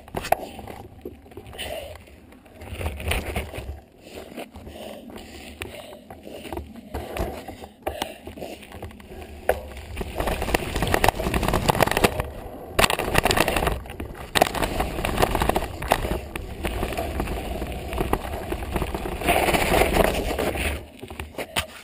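A dirt jump bicycle ridden over a jump track: rushing wind and tyre noise with a low rumble, growing louder and softer in waves, with short knocks and rattles from the bike over the bumps.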